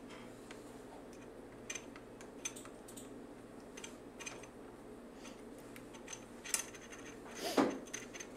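Small metal screws being fitted and turned by hand into an aluminium motor-mount plate: scattered light clicks and ticks over a faint steady hum. There is a brief low murmur near the end.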